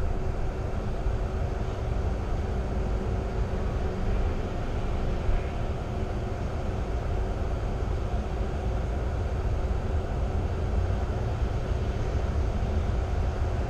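Steady low engine and road rumble heard from inside a double-decker bus driving slowly in traffic, with a faint steady hum and no sudden sounds.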